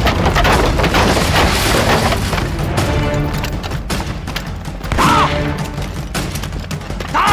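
Film battle sound effects over dramatic background music: deep explosion booms early on, then rapid rifle and machine-gun fire from about three seconds in.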